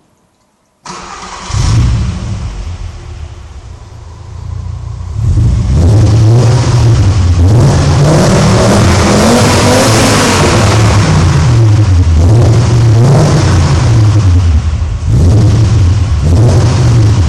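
Volkswagen Golf's 2.3-litre 10-valve V5 engine on its stock exhaust, starting up about a second in with a short flare, then idling briefly. From about five seconds in it is revved up and down repeatedly, the pitch rising and falling again and again.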